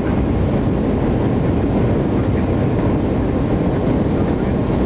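Steady low rumble of a jet airliner's engines during its landing.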